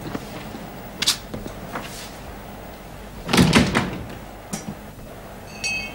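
A sharp knock about a second in, then a louder cluster of knocks and clatter about three and a half seconds in. Near the end, bell-like chimes begin.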